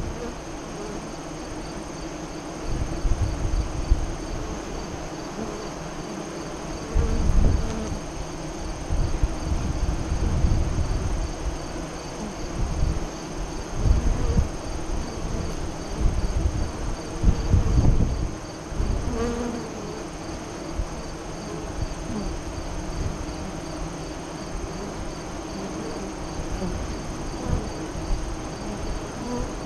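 Honey bees buzzing at a hive entrance, with a steady high-pitched insect trill behind them. Low rumbles of wind on the microphone rise and fall irregularly and are the loudest moments.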